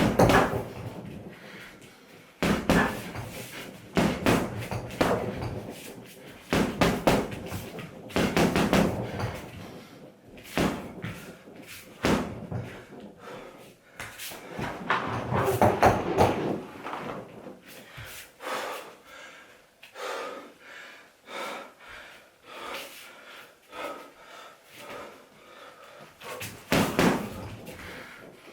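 Punches landing on a home heavy bag in quick combinations: clusters of sharp thuds with short pauses between, the hits lighter in the later part.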